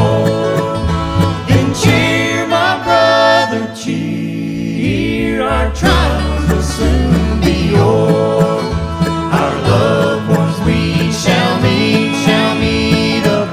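Live acoustic bluegrass band playing a gospel song: acoustic guitars, mandolin, banjo, fiddle and upright bass.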